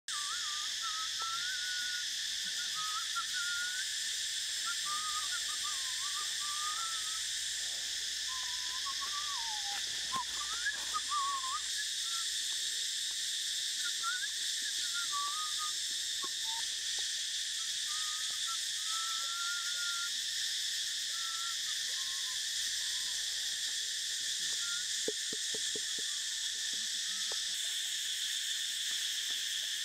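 Forest ambience: a steady high chorus of insects, with birds calling in short wavering whistles on and off.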